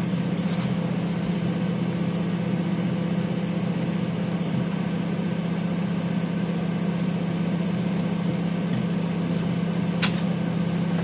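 Microwave oven running with a steady hum, heating a burning compact fluorescent lamp, with a single sharp click about ten seconds in.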